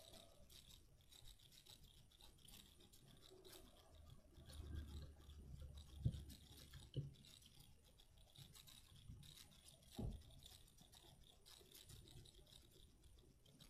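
Near silence with faint sounds of homemade slime being handled and kneaded, and a few soft thumps about six, seven and ten seconds in.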